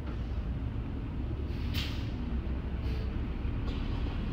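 Airport rental-car shuttle bus pulling up to the curb, its engine running with a low rumble. A short air-brake hiss comes a little under two seconds in and a longer, softer hiss about three seconds in as the bus comes to a stop.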